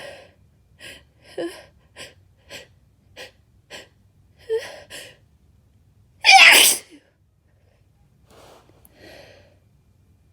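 A woman's sneeze during an induced sneezing fit: about eight short gasping breaths build up, then one loud, wet, spraying sneeze about six seconds in, followed by two faint breaths.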